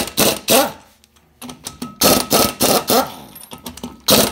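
Pneumatic impact wrench hammering on a wheel's lug nuts in a series of short loud bursts, loosening them to take the wheel off.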